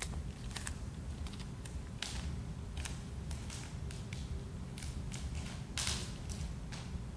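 Bare feet scuffing, sliding and stepping on a hardwood floor: a string of short taps and scuffs with a few longer swishes, about two seconds in and just before six seconds. A steady low hum runs underneath.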